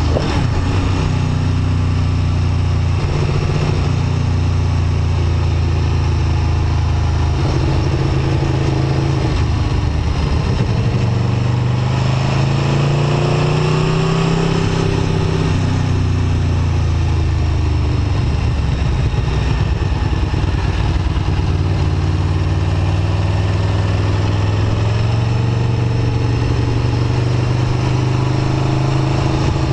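Aprilia Tuono V4 1100 RR's 1077 cc V4 engine running at a light, steady throttle. About halfway through the engine note climbs for a couple of seconds and then drops back as the bike speeds up and eases off, and it rises again near the end.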